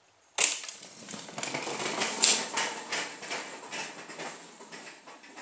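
A wooden mousetrap car let go: a sharp snap as it starts, then its plywood wheels on flower-cane axles clatter across a wooden floor in a rapid run of clicks, fading as it rolls away.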